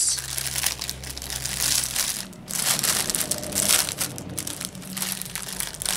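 A clear plastic bag full of small plastic packets of diamond painting drills crinkling and crackling unevenly as hands press and shuffle through it.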